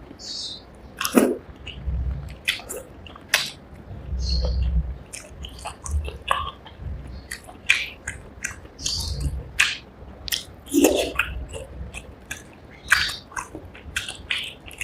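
Close-miked chewing of a mouthful of rice and fish curry: repeated soft, low chewing sounds with many sharp, wet mouth clicks and smacks.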